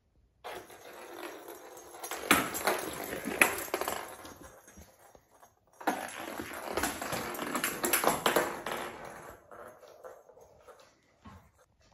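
Small plastic toy ball rolling and knocking across a laminate floor as a cat bats and chases it, mixed with the patter of its paws. It breaks off suddenly a little before halfway, starts again and fades out near the end.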